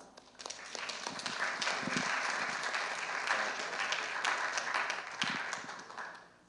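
Congregation applauding: many hands clapping, swelling within the first second and fading away near the end.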